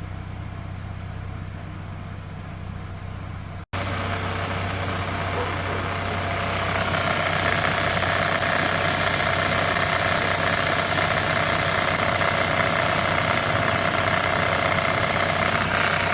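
Mercedes engine idling with its accessory drive belt turning. After a cut about four seconds in it is louder, and from about six seconds a harsh hissing noise joins it as the dirty belt pulley grooves are cleaned on the running engine; dirt in the pulley grooves is the cause of the belt squeal.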